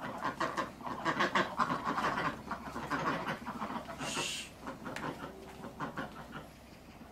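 Ducks quacking in quick runs of short calls, busiest in the first few seconds, with a brief hiss about four seconds in.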